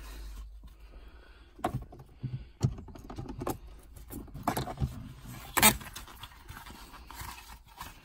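Leather gear gaiter and its plastic trim surround being handled and fitted over a Mk2 Focus RS gear lever: rustling with a handful of sharp clicks and knocks, the loudest about five and a half seconds in.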